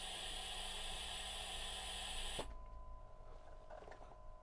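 Oxivent Life transport ventilator blowing gas out of a disconnected patient-circuit connection: a steady hiss during a delivered breath that cuts off sharply about two and a half seconds in as the breath ends. The open circuit keeps airway pressure below 9 cmH2O, the condition that sets off the low Paw alarm.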